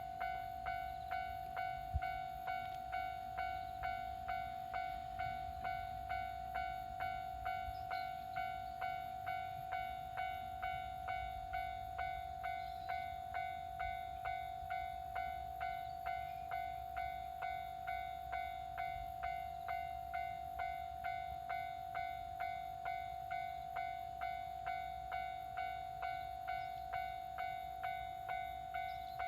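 Japanese railway level-crossing warning bell ringing in an even, repeating ding at about three strikes every two seconds, signalling that a train is approaching the crossing.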